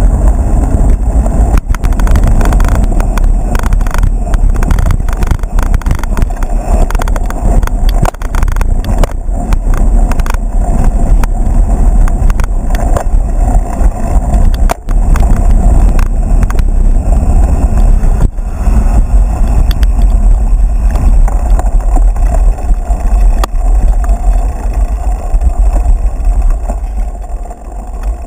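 Loud wind rumble buffeting a GoPro action camera's microphone on a mountain bike ridden at speed, with the bike rattling and clattering over rough ground; it eases near the end.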